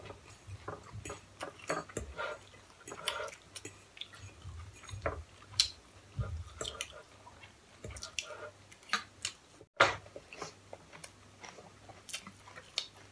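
Chewing while eating pancit canton noodles and chicken, with scattered sharp clicks of forks against plates. The loudest click comes about ten seconds in.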